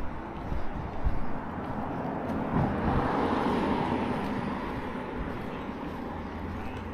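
A car passing close by on the road. Its tyre and engine noise swells to a peak about three seconds in, then fades as it drives away.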